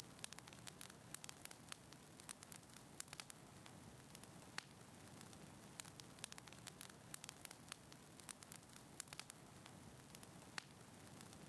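Faint crackling of a fireplace fire: irregular sharp snaps and pops, several a second, over a soft steady hiss.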